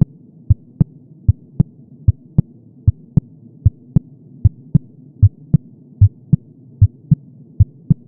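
Heartbeat sound effect: low thumps in lub-dub pairs, steady at about 75 beats a minute, over a low hum.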